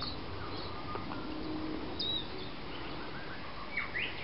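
Faint, scattered bird chirps over a steady outdoor background.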